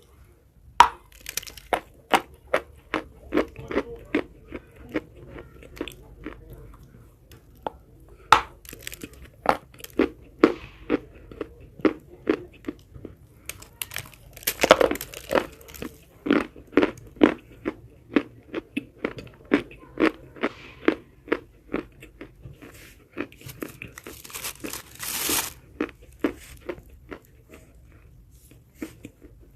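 Close-miked biting and chewing of dry chalk: a steady run of sharp, brittle crunches, with longer gritty crumbling stretches about halfway through and again near the end.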